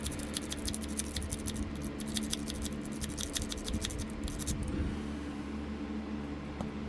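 Metal lock-pick rake scraping in and out of a pin-tumbler lock, a Master Lock, making rapid irregular clicks as it rattles over the pins; the clicking stops about five seconds in without the lock opening.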